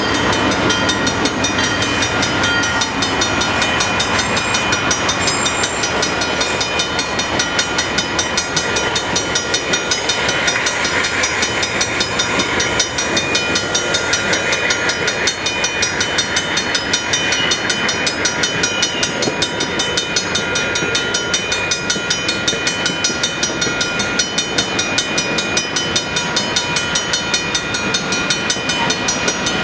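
Railroad grade-crossing bell ringing in rapid, steady strokes while passenger cars roll through the crossing, their wheels clacking over the rails.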